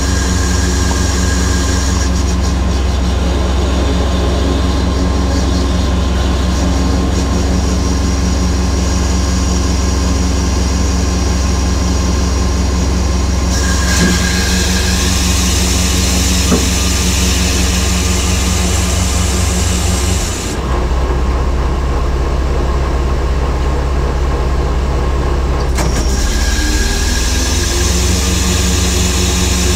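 Mercedes-Benz Actros truck engine running with the loader crane's hydraulics in use, a loud steady drone under the load being lowered. About two-thirds of the way in the note drops for several seconds, then rises back up, with a couple of light knocks from the load.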